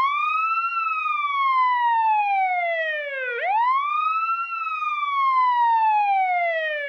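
Siren wailing: each cycle rises quickly in pitch, then falls slowly over about three seconds, and starts again. A new rise comes about halfway through.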